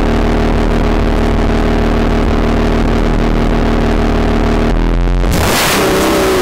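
A Chevrolet Camaro's 3.6-litre V6 with a Borla ATAK axle-back exhaust idles with a steady low drone. About five seconds in it revs sharply and the sound turns louder and rougher. This is the phone's recording made in front of the car.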